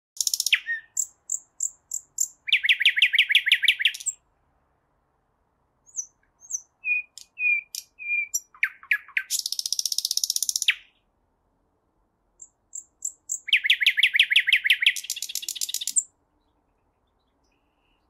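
Nightingale singing: three phrases of whistled notes and fast, rattling runs of repeated notes, each lasting a few seconds, with short pauses between them.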